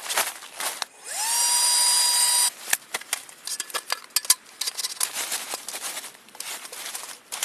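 A small motor whirs: its pitch rises quickly, holds steady for about a second and stops abruptly. Irregular clicks and rustling follow.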